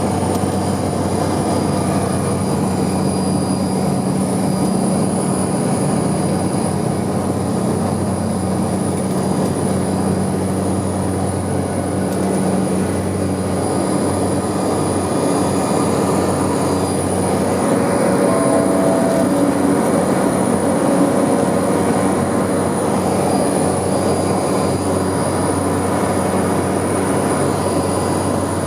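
Cessna 208B Caravan's single PT6A turboprop engine and propeller running, heard from inside the cabin: a steady low drone with a constant high turbine whine over it. It grows slightly louder from about two-thirds of the way in.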